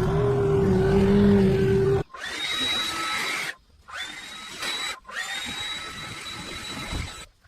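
A motorised power tool running in short clips cut together. A steady low hum for about two seconds gives way abruptly to a high, steady whine that stops and starts with brief silent gaps.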